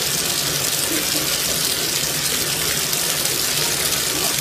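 Bathtub tap running, a steady gush of water pouring from the spout and splashing into the tub.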